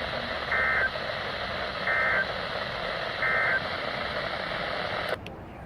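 NOAA Weather Radio broadcast sending the EAS/SAME end-of-message code: three short warbling data bursts about 1.3 seconds apart over steady radio static. The static drops sharply about five seconds in.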